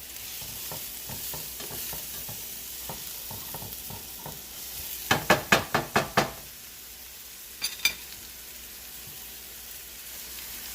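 Stir-fried vegetables sizzling in a pan while being stirred, with light scraping clicks. About halfway through come six quick, loud knocks, then two more a couple of seconds later.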